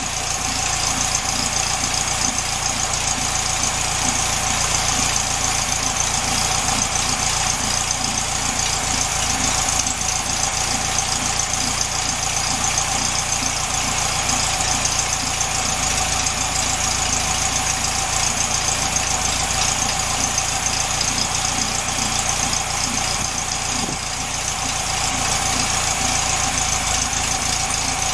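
1967 VW Beetle's air-cooled flat-four engine idling steadily at about 800 rpm, warm and off choke, as its carburettor idle mixture is being set for best revs.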